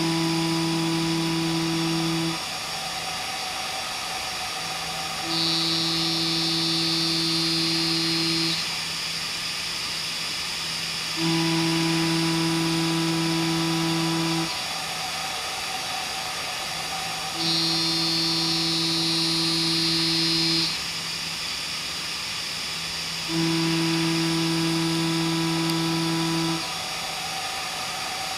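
CB Ferrari GT2000 CNC machining centre milling H13 tool steel with a Walter cutter, in repeated passes: a steady hiss runs throughout, and a pitched cutting whine, a little louder, comes in for about three seconds and drops out again about every six seconds, five times in all.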